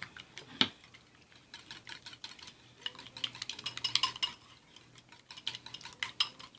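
A wire whisk beating eggs into a bowl of applesauce and apple jelly, clicking rapidly against the side of the bowl. One louder knock comes just over half a second in.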